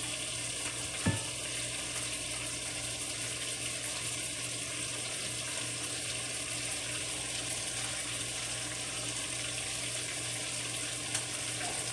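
Fish or meat frying in hot oil in a pan, a steady sizzle, with a single knock about a second in.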